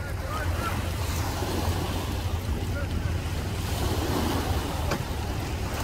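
Wind buffeting the microphone over small waves lapping against a concrete boat ramp.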